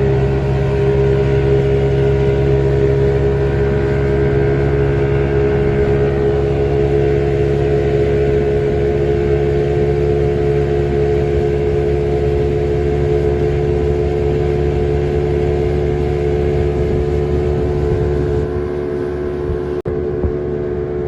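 Passenger boat's outboard engine running at a steady speed, with a brief dropout near the end.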